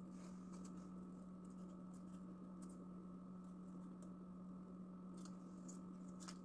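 Very faint handling sounds: scattered small clicks and rustles of paper flowers being worked by hand, over a steady low hum.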